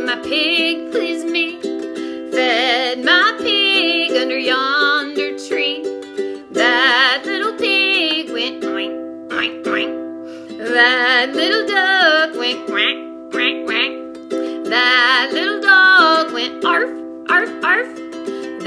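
A woman singing a folk song to her own strummed ukulele, with held notes that waver in pitch over the steady chords.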